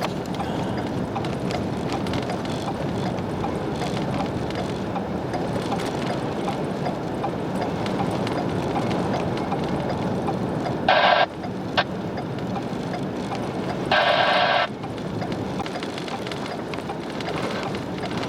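Steady rushing noise of a vehicle driving and of blizzard wind. It is broken twice by a short, loud pitched tone, once about eleven seconds in and again three seconds later.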